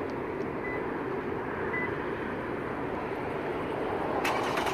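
Steady outdoor background noise with faint short beeps about once a second in the first two seconds. Near the end, a sharp click and the 2013 Lexus RX 350's V6 cranking and catching, triggered by a remote start from the factory key fob.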